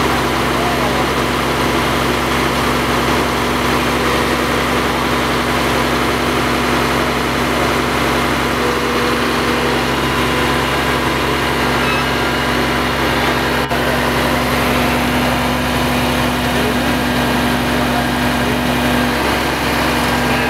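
Fire engine aerial platform truck's diesel engine running steadily with a constant hum, powering the raised boom's hydraulics. A single sharp click sounds about two-thirds of the way through.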